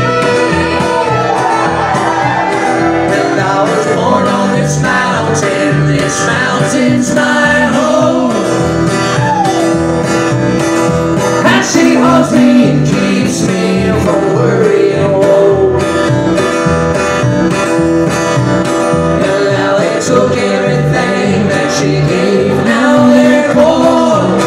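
Live acoustic band playing an instrumental passage: strummed acoustic guitar, with a fiddle playing a sliding melody line over it and upright bass underneath.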